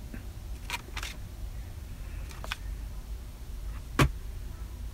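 Centre-console armrest compartment lid being handled and closed: a few soft clicks and knocks, then one sharper click about four seconds in, over a low steady rumble.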